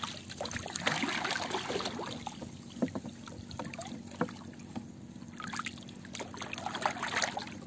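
Sea water lapping and splashing around a small outrigger canoe, with a few scattered small knocks.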